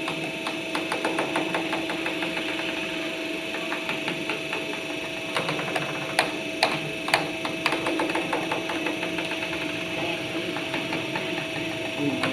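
CNC aluminium arch-bending machine running: a steady motor hum with fast, dense ticking, and a few sharper clicks about six to seven and a half seconds in.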